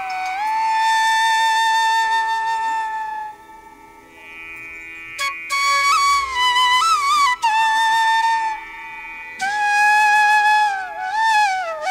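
Background music: a solo melody that opens with one long held note, dips into a short lull about four seconds in, then carries on in phrases with sliding pitch bends.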